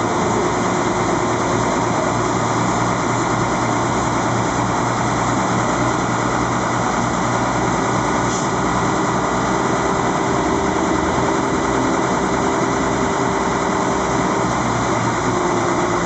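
Engine running steadily with a constant hum, hauling the tarabita cable car along its cable, over a steady rushing noise.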